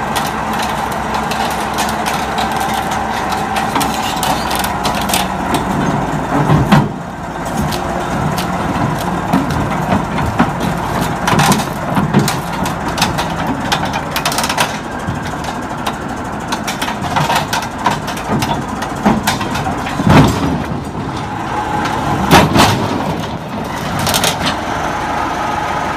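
Crawler bulldozer's diesel engine running steadily as it climbs a trailer ramp, with its steel tracks clanking and several loud metal bangs, the loudest about twenty and twenty-two seconds in.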